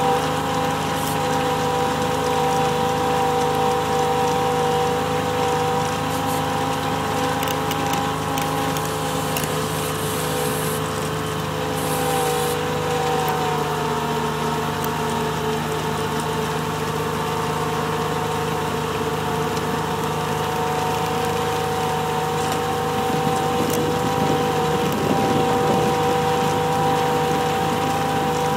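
Kubota RTV 1140 CPX utility vehicle on Soucy rubber tracks driving through deep snow, its three-cylinder diesel running steadily with a constant whine over the engine's rumble. The pitch dips briefly about halfway through, then steadies again.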